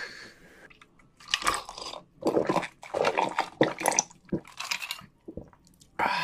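Close-miked gulping of a drink from a glass: a run of loud swallows, then a breathy 'ah' of an exhale near the end.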